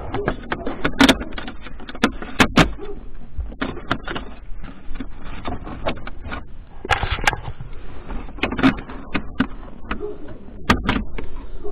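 Plastic dashboard trim in a car being pried and pulled loose by hand: a run of sharp clicks, snaps and knocks with handling rustle. The loudest snaps come about a second in, around two and a half seconds, about seven seconds and near the end.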